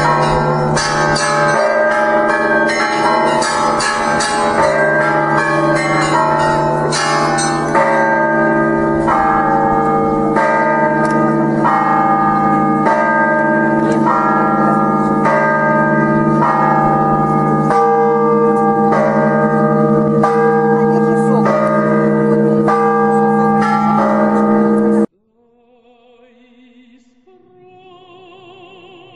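Church bells ringing, many bells struck in quick succession with overlapping ringing tones, until they cut off suddenly near the end. A quiet singing voice with vibrato follows.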